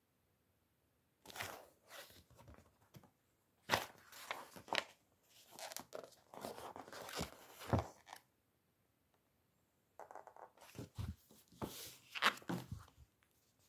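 Paper pages of a softcover book rustling and flapping as they are turned and the book is handled, in three bursts of crisp rustles with short pauses between.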